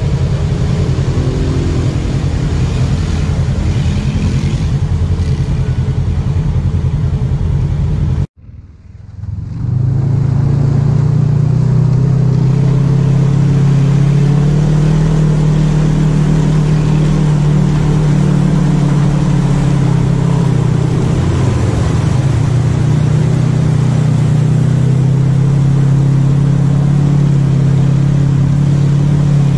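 ATV engine revving as a quad churns through a mud hole. After a sudden cut about eight seconds in, an off-road vehicle's engine runs steadily and loudly while driving through muddy water.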